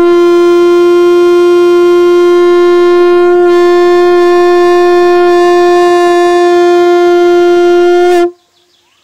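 A blown horn sounding one long steady note for about eight seconds, which slides slightly upward and cuts off near the end.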